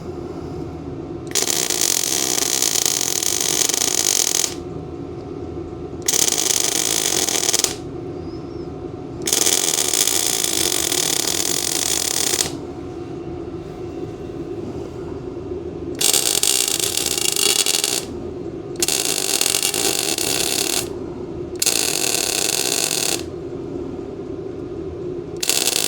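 Best Arc MIG 145 welder on 110 V laying a series of short welds: the arc crackles in seven bursts of one to three seconds each, with a steady hum from the machine in the pauses between them.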